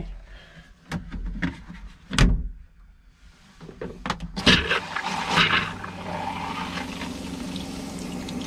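Several sharp knocks and clunks, then liquid running in a small bathroom over the steady hum of the camper's water pump, which is pushing pink RV antifreeze through the plumbing as part of winterizing.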